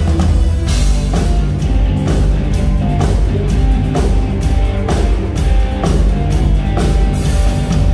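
Live rock band playing loudly on electric guitar and drum kit, with heavy bass and regular drum and cymbal hits.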